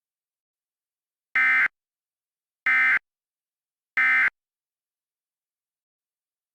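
Emergency Alert System end-of-message signal: three short, identical bursts of SAME digital data tones, a harsh electronic screech about 1.3 s apart, starting about a second and a half in. It marks the end of the warning broadcast.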